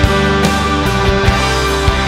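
Loud rock music with distorted guitar and a steady drum beat.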